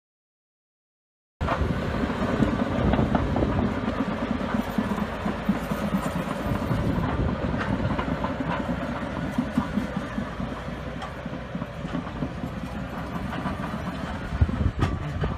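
Crawler bulldozer's diesel engine running, with steel tracks clanking and rattling, starting about a second and a half in. There is a sharp knock near the end.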